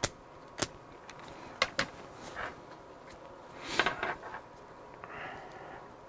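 Light metallic clicks and scraping of a steel pick working broken bearing pieces out of a Traxxas Velineon motor: a few sharp ticks spaced out over the first two seconds, then a busier run of clicks and scrapes near the middle.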